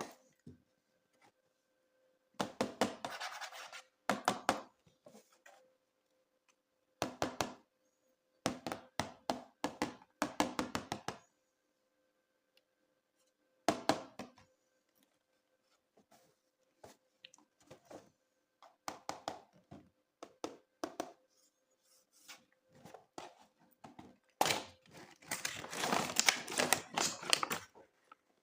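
Hands handling and opening toy packaging: clusters of clicking, scraping and crinkling with silent gaps between, busiest and loudest near the end.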